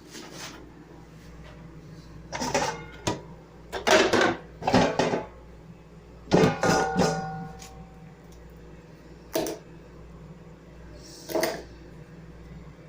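Kitchenware being handled: a series of irregular clatters and knocks, one of them leaving a short ringing tone.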